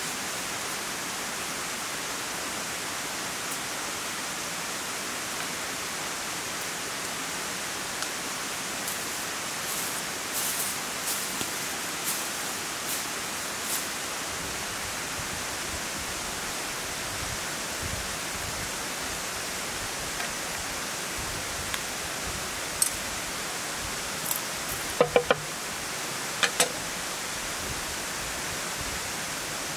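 Steady rush of flowing water, with scattered light clicks and a few sharper knocks near the end, one cluster of them briefly ringing.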